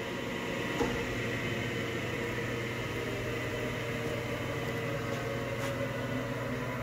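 Wysong mechanical power shear's 10-horsepower motor and flywheel running steadily between cutting strokes: an even machine hum, with a light click about a second in.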